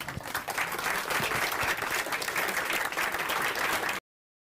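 Audience applauding, a dense patter of many hands clapping at once; it cuts off abruptly near the end.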